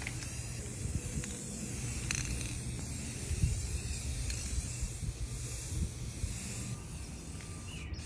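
Aerosol can of brown spray paint hissing as a second coat is sprayed onto a mini fridge's metal sides in steady passes.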